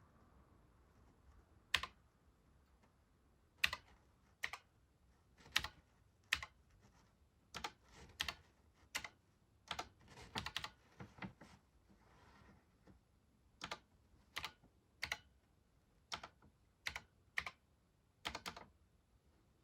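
Keys of a Sharp MZ-80K2E computer keyboard being pressed one at a time: slow, irregular single clicks about a second apart, now and then two in quick succession.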